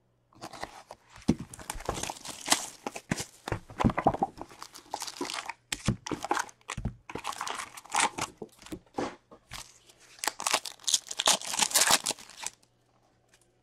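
Plastic wrapping crinkling and tearing as an Upper Deck Series 2 hockey card box and pack are ripped open by hand, in a dense run of crackles that stops about a second before the end.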